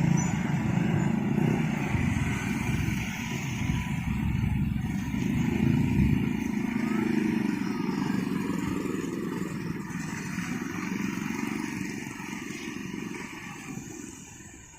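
Low rumble of vehicles passing at a railway level crossing, fading away gradually until it is much quieter near the end.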